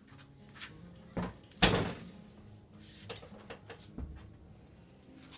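Sharp metal knocks as a wheel bearing is driven out of a motorcycle's rear hub: one hit about a second in and a louder, ringing one just after, then a few lighter taps.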